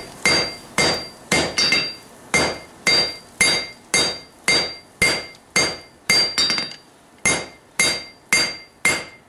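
Hand hammer striking a billet at forge-welding heat on an anvil, about two blows a second, each blow leaving a short metallic ring. This is the setting of a forge weld in a folded pattern-welded (mosaic Damascus) steel billet, with sparks throwing off the welding-hot steel.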